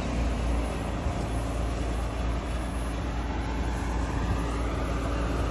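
Combine harvester running steadily: a constant low engine rumble under an even mechanical din from the working machine.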